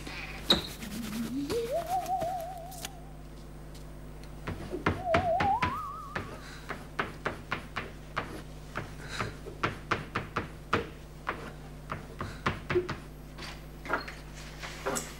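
A wavering music cue glides upward twice, then chalk taps rapidly and unevenly, several times a second, against a blackboard as formulas are written. A door opens near the end.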